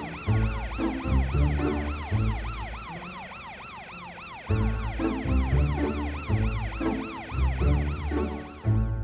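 Cartoon emergency-vehicle sirens from a police car and fire engine, a fast yelping wail that sweeps up and down about four times a second. Under them runs background music with a bass beat, which drops out for a couple of seconds in the middle.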